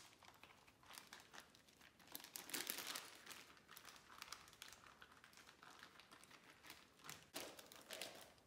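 Faint crinkling of a plastic freezer bag being handled, with scattered light taps and clicks, louder for a moment about two and a half seconds in.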